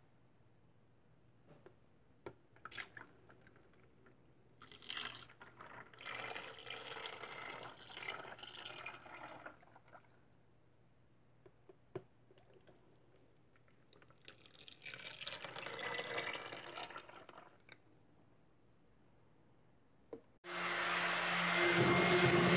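Liquid soap batter poured from a stainless pot into plastic containers in two long, splashing pours, with a few light knocks of containers before them. Near the end a handheld stick blender switches on suddenly and runs with a steady whine, the loudest sound here.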